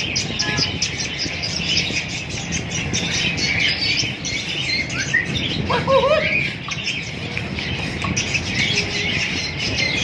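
A dense, continuous chorus of chirps and tweets from many caged birds, with a few short whistled notes that rise and fall about six seconds in.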